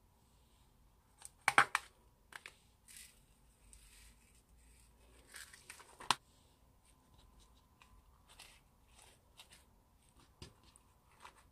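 A small plastic container of sequins is handled and opened with a loud crackly snap, and sequins are shaken out onto slime, with a sharp click about six seconds in. After that come faint crackles and squishes as white slime is folded over by hand.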